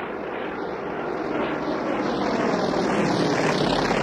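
Four Polikarpov I-16 fighters' nine-cylinder Shvetsov radial engines running in a formation flypast, growing louder from about a second and a half in as the aircraft close in.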